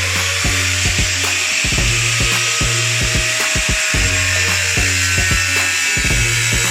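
A power cutting tool cutting steadily through the thin, rust-weakened sheet metal of a car's rocker panel, a continuous high hiss and whine, with background music and a steady bass beat under it.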